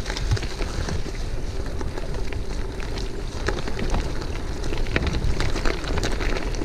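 Mountain bike rolling over a forest track covered in dry leaves: the tyres crackle on the leaves and the bike rattles in many short clicks, over a steady rumble of wind on the microphone.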